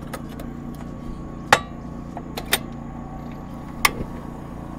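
Camp cooking gear around a cast-iron skillet being handled, giving scattered sharp metallic clanks and clinks over a steady low hum. The loudest clank comes about a second and a half in, with others near two and a half and four seconds.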